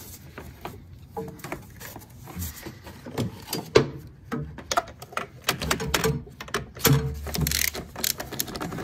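Irregular clicks, taps and knocks of gloved hands and metal parts as a bolt is worked into a car's upper engine mount, with one sharper knock a little before halfway and some low rumbling of handling near the end.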